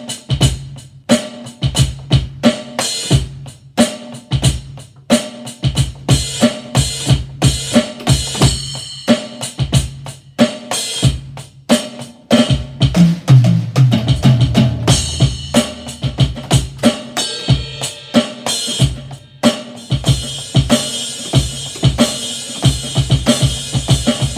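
Carlsbro electronic drum kit played through its amplifier: a steady beat of kick, snare and hi-hat sounds. There is a heavier low run of drum hits about halfway through and more cymbal wash in the last few seconds.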